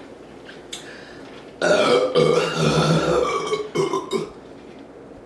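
A person letting out a long, loud burp of about two seconds, starting about a second and a half in, with a brief second burp straight after. The burp is brought up by chugging a bottle of carbonated cola.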